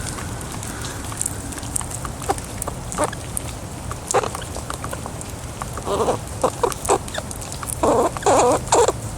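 A squirrel squeaking in short repeated calls as it is poked and petted, starting about six seconds in and loudest near the end, with scattered faint clicks before.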